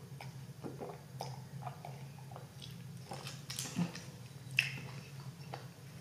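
Close-miked mouth sounds of someone chewing a mouthful of burger with lips closed: soft, wet clicks and smacks at irregular intervals, over a faint steady low hum.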